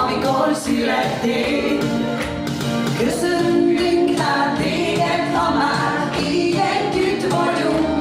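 Live song: two women singing together into microphones over electronic keyboard backing, amplified through a PA.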